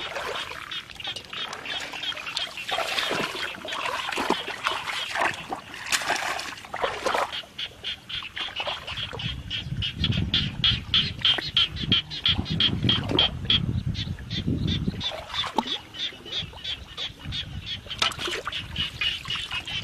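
Water splashing and sloshing around someone wading in a flooded paddy. From about seven seconds in, a rapid, evenly repeated high-pitched animal call, about five short pulses a second, continues to the end.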